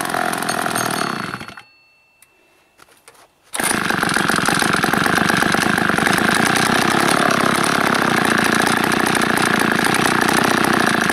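Wood-gas-fuelled two-stroke chainsaw engine running, then fading out about a second and a half in. After about two seconds of near silence with a few faint clicks, it is suddenly running again and holds a steady idle.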